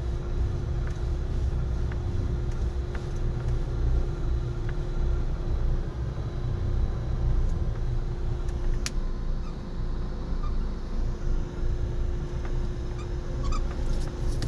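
Truck's diesel engine running at low revs as a steady low rumble, with a faint steady hum and light ticks about once a second.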